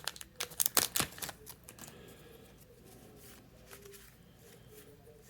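Yu-Gi-Oh! trading cards and their foil booster-pack wrapper being handled: a quick run of crisp clicks and crinkles in the first second and a half, then only faint room sound.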